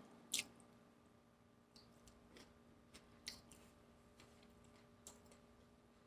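Near silence: faint room tone with a low steady hum and a handful of faint, scattered clicks.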